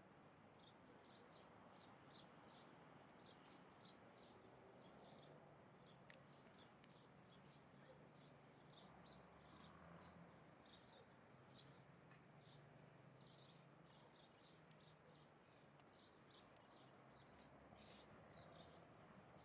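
Birds chirping: a steady run of many short, high chirps, several a second, over a faint background hiss.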